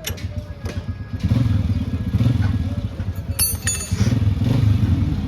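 Motorcycle engine running with a steady low pulsing note and several sharp clicks. A short high metallic ring comes about three and a half seconds in.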